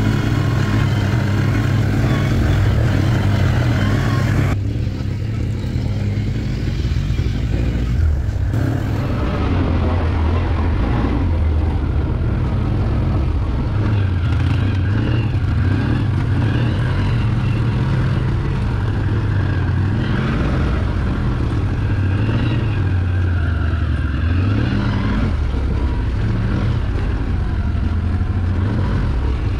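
Can-Am ATV engine running steadily while the machine is ridden, its low drone rising and falling slightly with the throttle.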